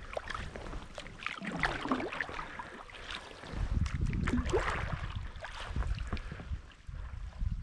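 Water splashing and dripping around a kayak being paddled through calm water, with low wind rumble on the microphone that grows stronger about halfway through.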